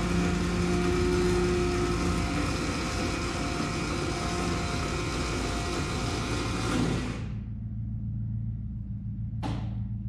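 Electric motor whirring steadily as a Cessna 310's retractable landing lights are extended. It cuts off about seven seconds in, leaving a lower hum.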